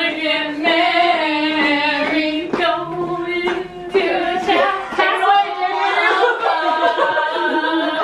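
Several women singing together without accompaniment, holding long notes.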